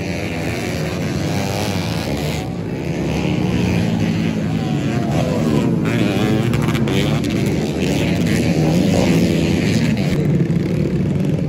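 Grasstrack race motorcycles running hard, several at once, with their engine pitch rising and falling as the riders throttle up and back off around the circuit.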